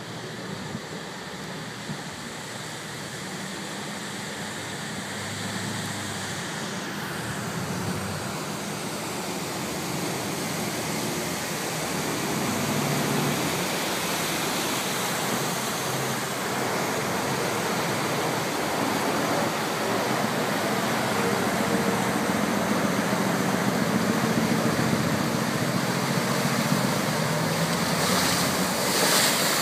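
Khlong Saen Saep canal express boat's diesel engine and bow wash growing steadily louder as the boat roars in close, with rushing, splashing water near the end.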